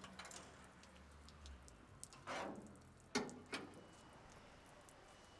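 Handling of a street sweeper's steel hopper and its fittings: a short scrape or rush, then two sharp metal knocks about a third of a second apart.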